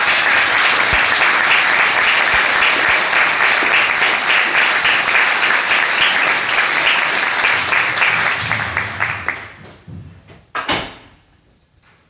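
Audience applauding, dying away about nine to ten seconds in, followed by a single sharp knock.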